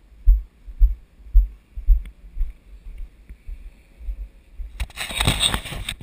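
Dull low thumps about twice a second, footsteps jolting a handheld camera's microphone as it is carried at a walk. From about five seconds in, a loud burst of rustling and crackling as the microphone is handled or hit by wind.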